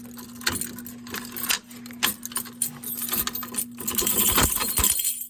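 A ring of keys jangling and clicking as a key is worked into a stiff lock on a Simplex T-bar pull station to reset it, with knocks and handling louder near the end. A steady low hum runs underneath.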